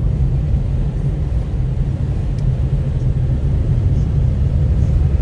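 A car on the move: a steady low road and engine rumble.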